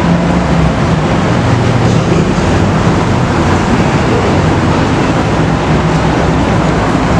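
Steady city street traffic noise: a continuous wash of passing cars with a low engine rumble underneath.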